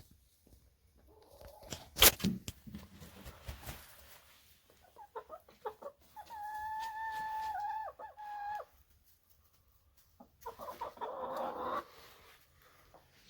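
Chickens clucking and calling, with one long, level drawn-out call lasting about two seconds midway and a burst of rough clucking near the end. A single sharp knock sounds about two seconds in.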